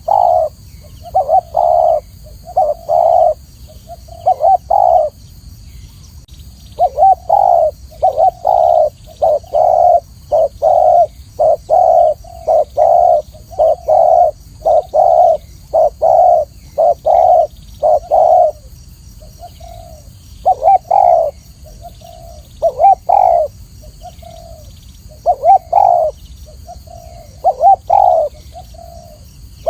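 Spotted dove cooing: short, deep coo notes repeated in phrases one after another, with a pause of a second or so about five seconds in and some softer notes among them later.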